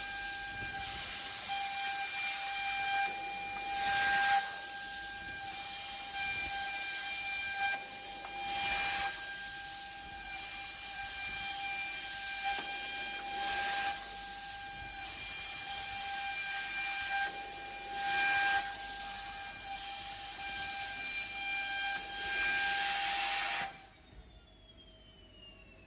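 Spindle of a rotary CNC router running with a steady high whine over the hiss of cutting into plywood die board, swelling briefly about every four to five seconds. It stops abruptly near the end.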